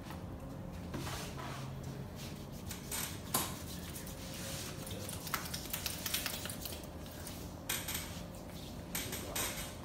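Close-up massage handling sounds: rustling and rubbing of hands working over skin and clothing, broken by scattered short clicks and taps, the sharpest about three seconds in.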